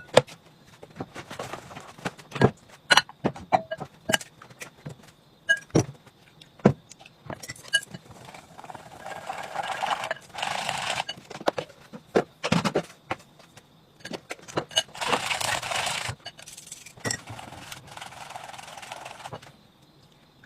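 Cooking sounds: a run of sharp clicks and knocks of utensils and kitchenware in the first few seconds, then several stretches of steady hissing or rustling noise a few seconds long, with a few knocks between them.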